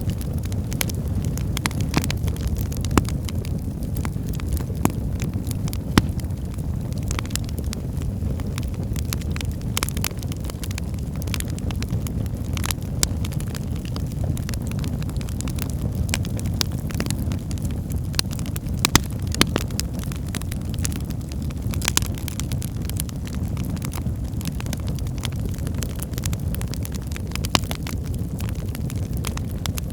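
Wood fire burning in a fireplace: a steady low rush of flames with frequent small crackles of the burning logs and a handful of louder pops.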